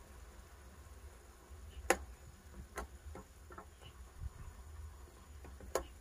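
Scattered sharp clicks and knocks over a low steady rumble, with a louder knock about two seconds in and another near the end.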